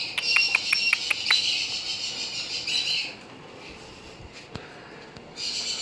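Cockatoos making a harsh, high chattering call for about three seconds, with a quick run of clicks in the first second; the call starts up again near the end.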